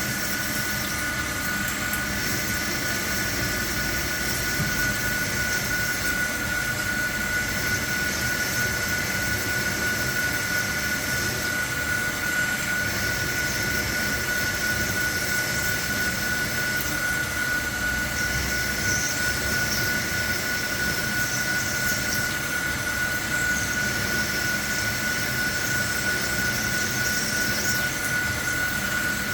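CNC machining centre running a peck-drilling cycle: a steady spindle whine over machine hiss, with a higher squeal from the drill cutting that comes and goes in the second half.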